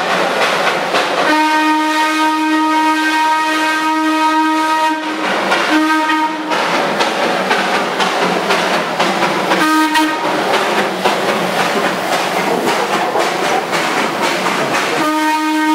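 Darjeeling Himalayan Railway B-class steam locomotive passing at close range, its steam whistle sounding one steady pitch: a long blast, two short ones, then another long blast starting near the end. Underneath runs the loud, steady noise of its working steam.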